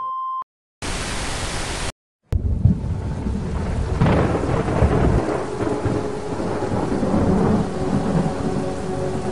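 A steady high beep that cuts off just after the start, then a second-long burst of static hiss from the switched-off TV screen. After that a thunderclap rumbles in and gives way to steady rain, as a thunderstorm sound effect.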